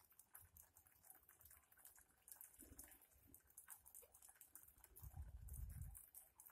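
Near silence with a rapid, faint patter of small ticks from a feeding flock of white cockatoos and galahs cracking grain on the ground, and a low rumble from about five seconds in.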